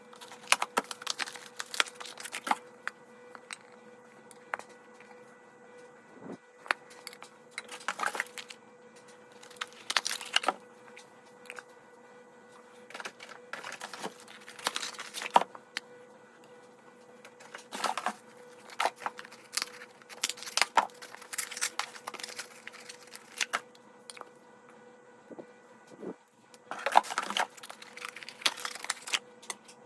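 Hands unpacking items from their packaging: scattered clicks, taps and short bursts of crinkling and tearing wrapping, busier in a few clusters, over a faint steady hum.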